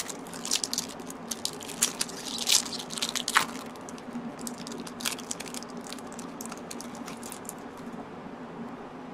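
Foil booster-pack wrapper of a 1996 Magic: The Gathering Alliances pack crinkling and crackling as it is torn open and the cards are pulled out. The crackles thin out after about five seconds.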